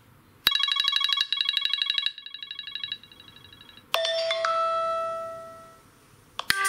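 Apple iPhone stock ringtones (iOS 13.5) played one after another. About half a second in, a rapid run of high electronic beeps starts and drops in level twice. About four seconds in, a different ringtone opens with a long held chime note that fades away, and a third starts at the very end.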